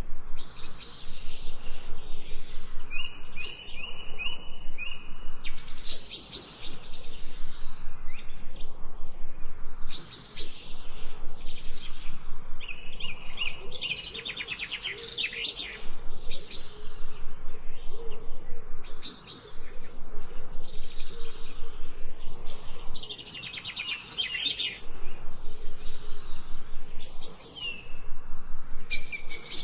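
Songbirds singing and chirping: short whistled notes and phrases repeated throughout, with louder rapid trills at about 14 seconds and again near 24 seconds.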